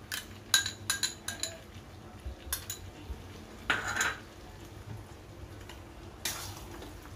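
Metal spoon clinking against a bowl and the rim of a metal kadai as cashew paste is scraped into the pan: about half a dozen ringing clinks in the first three seconds. Then come two longer scrapes of the spoon stirring in the pan.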